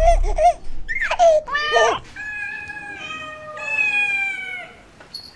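A cat meowing: several short wavering meows in the first two seconds, then a few long, drawn-out meows of nearly steady pitch.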